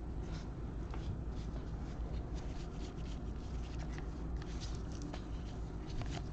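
Trading cards being slid and flipped off a stack one after another: a string of short scraping strokes, several a second, over a steady low hum.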